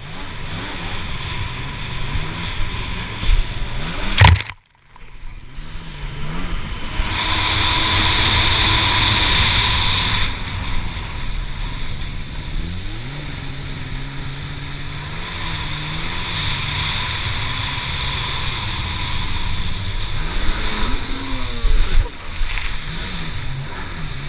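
Stand-up jet ski engine running at speed, its pitch rising and falling with the throttle, over rushing water and spray. There are loud slaps as the hull hits the wake just after 4 seconds in and again about 21 seconds in, and the sound cuts out for a moment right after the first slap.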